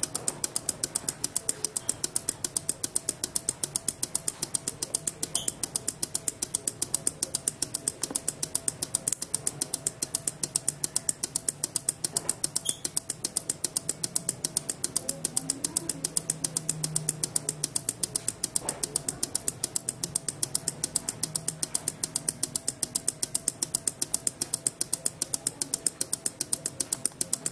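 Three small relays in a transistor-less LED chaser circuit clicking on and off in turn, a rapid, even ticking that keeps time with the running lights.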